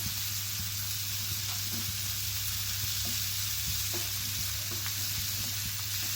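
Onion-tomato masala with spices sizzling steadily as it fries in a pan, stirred with a few light taps of the spoon.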